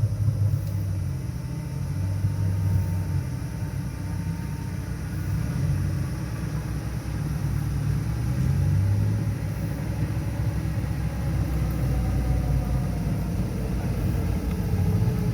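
Off-road vehicle's engine running at low revs as it crawls along a rough trail: a steady low hum that swells and eases a little.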